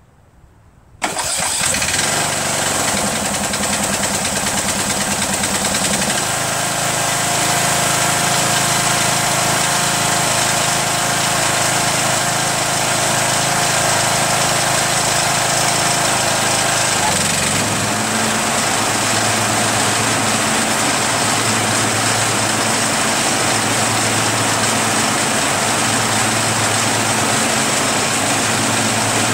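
A Troy-Bilt lawn tractor's 21 hp Briggs & Stratton Intek engine is started cold on choke. It catches almost at once, about a second in, and runs steadily. Its note shifts about six and again about seventeen seconds in, and after the second change a slow throb comes about once a second.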